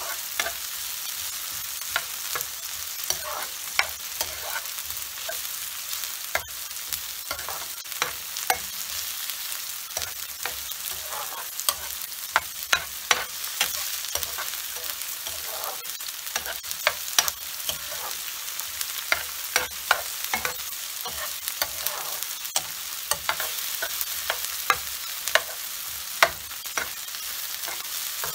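Sliced red onions sizzling in oil in a nonstick frying pan, with a steady hiss and frequent clicks and scrapes as a spatula stirs and turns them against the pan.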